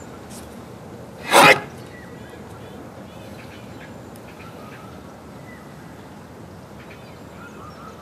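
A single forceful exhale, a short sharp rush of breath about a second and a half in, over a steady background hiss.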